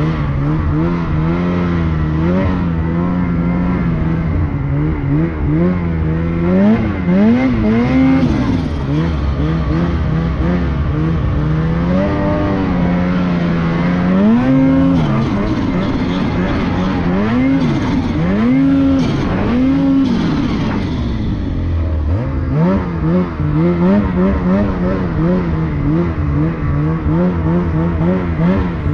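Snowmobile engine revving up and down over and over as it is ridden through deep powder, the pitch rising and falling in quick swells.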